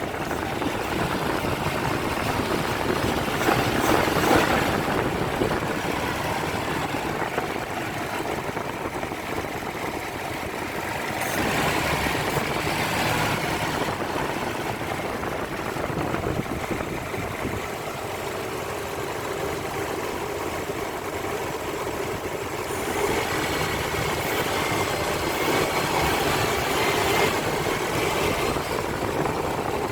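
Nissan VG33 3.3-litre V6 engine idling, growing louder for a few seconds at a time three times; the owner wonders whether it has an intake vacuum leak.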